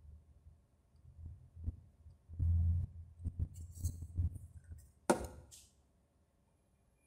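Handling noise: scattered taps and low thumps as a smartphone is touched and picked up from a table, then one sharp click with a brief hiss about five seconds in as a hand goes to the soundbar.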